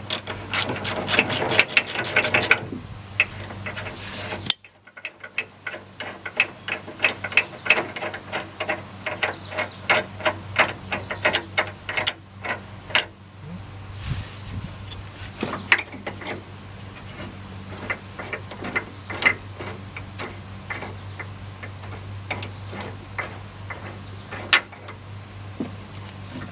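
Hand ratchet clicking in quick runs as the upper control arm's mounting bolts are backed out of their captive nuts, with a short break about four and a half seconds in; the clicks grow sparser in the second half.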